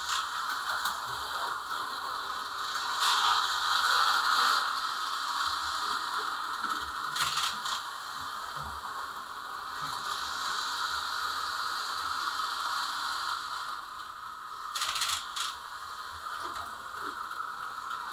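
HO-scale slot car's tiny electric motor and gears whining steadily as it laps the plastic track, louder and softer as it speeds up and slows down, with a few sharp clicks along the way. The car is one the owner finds not very smooth and in need of work.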